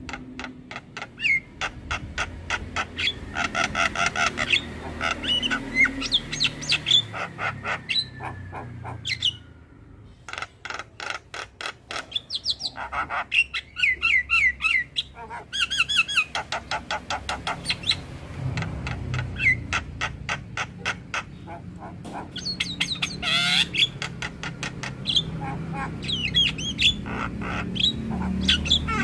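Javan myna (jalak kebo) singing a long, busy song: fast runs of clicks and rattles mixed with short whistled notes, rising glides and squawks, with a short break about ten seconds in before it carries on.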